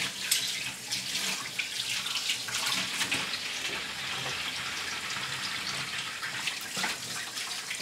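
Kitchen tap running into a stainless-steel sink while dishes are washed by hand, a steady splashing hiss with a few light clinks.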